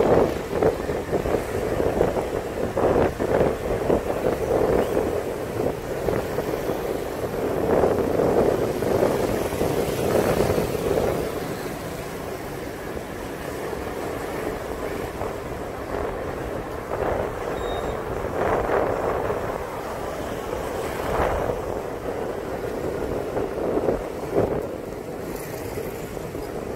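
City street traffic: the hum of motorbike and car engines on the road, with wind buffeting the microphone in uneven gusts.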